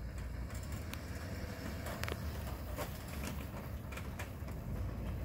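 Low, steady rumble of a 2009 Duramax LMM 6.6-litre V8 turbo-diesel pickup being backed up, with scattered light clicks over it.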